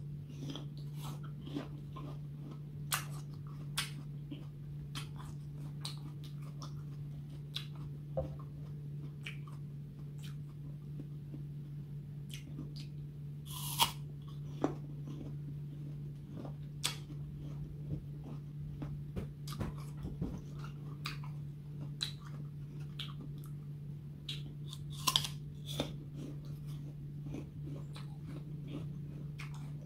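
Crisp green apple slices being bitten and chewed close to the microphone: a string of sharp, wet crunches, with loud bites about halfway through and again later on. A steady low hum runs underneath.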